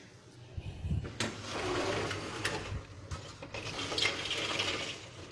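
A sliding window in a metal frame being pushed open: an uneven scraping, rushing noise with a few sharp clicks and knocks.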